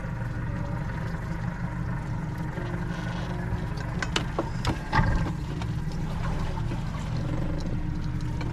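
Boat engine running steadily at low speed, with a few sharp knocks about four to five seconds in.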